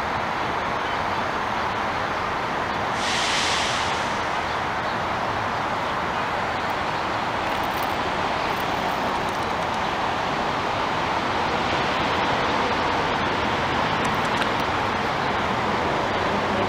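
Steady roar of distant road traffic, with a brief higher hiss about three seconds in.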